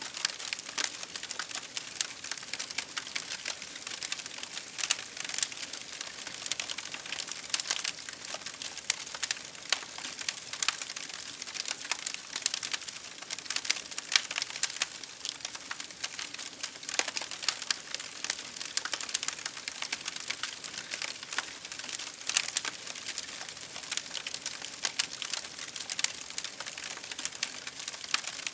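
Fire crackling: a dense, irregular run of small pops and snaps over a soft hiss, with louder snaps scattered throughout.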